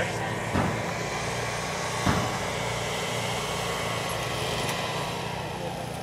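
Diesel engine of railway track-laying machinery running steadily, its pitch and level easing down a little near the end.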